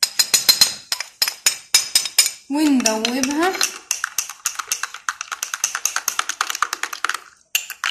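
A spoon clinking in a cup as yeast and sugar are stirred into water to dissolve: a few separate clinks first, then a quick, even run of clinks as the stirring gets going.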